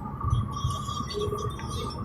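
Low rumble of road noise in a moving vehicle, with a steady high hum over it and scattered faint high chirps.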